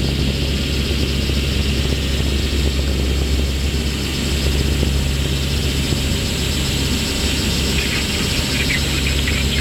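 Four turboprop engines of a C-130 Hercules running steadily in flight, heard inside the cockpit as a constant low drone with a steady hum.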